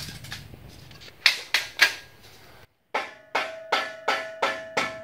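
A mallet knocking a loose exhaust tailpipe back about three-quarters of an inch. There are three quick knocks, then after a short gap a steady run of about three strikes a second, and the metal pipe rings with a clear tone after each strike.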